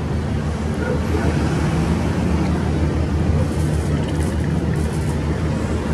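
Steady low drone of a running engine, with a rushing hiss over it.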